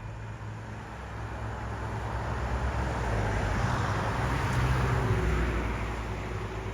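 A motor vehicle passing by: engine hum and road noise growing louder to a peak about four to five seconds in, then easing off as it moves away.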